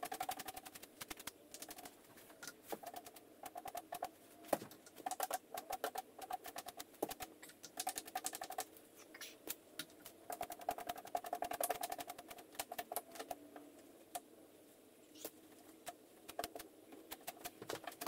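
A homemade sponge dabbing wet joint compound onto a drywall patch and dipping into a bucket of mud: quick irregular clusters of soft wet taps and squelches with short pauses between them.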